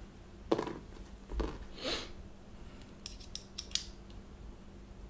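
Small tools and airsoft rifle parts being handled on a work mat: a sharp click about half a second in, a couple of softer knocks and a brief scrape, then a quick run of small clicks about three seconds in.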